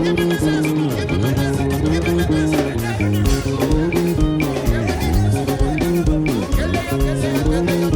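Upbeat African praise dance music from a live band: plucked electric guitar lines over bass and a steady beat of regular drum strokes.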